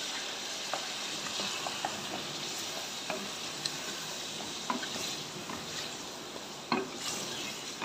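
Mutton pieces and garlic paste sizzling in hot oil in a pressure cooker pot, being browned, with a wooden spoon stirring the meat and now and then scraping and knocking against the pot.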